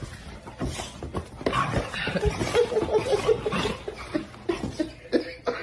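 A person laughing in a quick run of short laughs, loudest in the middle.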